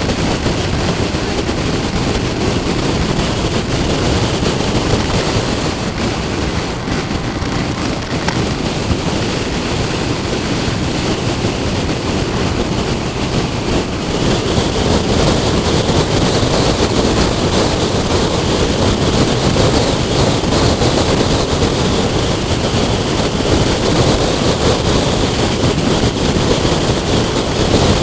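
Wind rushing over the microphone of a moving motorcycle, with the bike's engine and road noise beneath it. It grows louder about halfway through.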